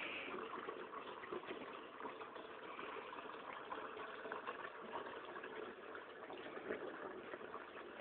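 Faint, steady splashing and trickling of water in a kitchen sink as a plate is washed by hand.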